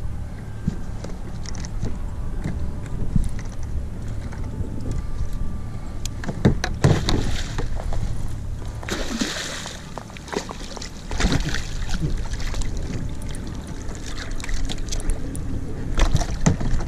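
Wind rumbling on the microphone over lapping water, with splashes and knocks against the kayak as a hooked mackerel is brought alongside; the biggest splash comes about nine seconds in.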